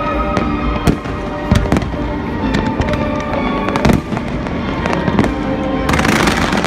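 Fireworks display: shells bursting in a quick, irregular run of bangs and pops, with music playing underneath. Near the end a dense hiss of crackling sparks comes in.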